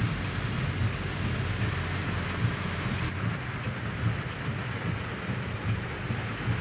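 Inside a car's cabin while driving through heavy rain and floodwater: a steady hiss of rain and water spray over the low hum of the car's engine. A faint high tick repeats a little more than once a second.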